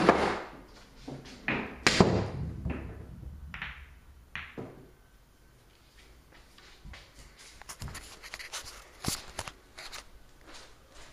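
Pool cue striking and billiard balls clacking together on a pool table: two sharp clacks, at the start and about two seconds in, followed by lighter knocks and scattered faint clicks.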